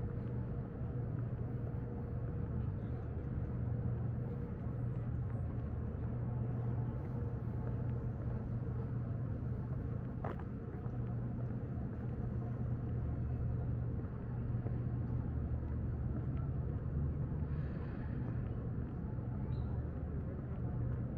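Steady low rumble of background noise, with one brief sharp click about ten seconds in.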